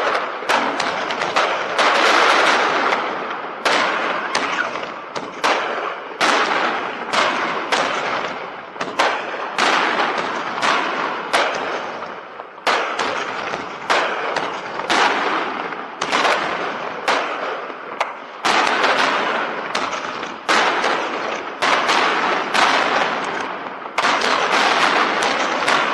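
Aerial fireworks shells bursting in a rapid barrage, sharp reports coming two or three a second, each trailing off in an echoing rumble and crackle. Near the end the bursts run together into a continuous barrage.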